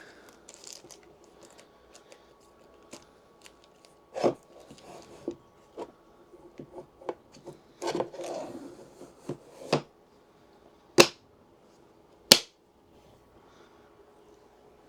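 Handling noises: scattered clicks and knocks with some rustling, ending in two sharp knocks that are the loudest.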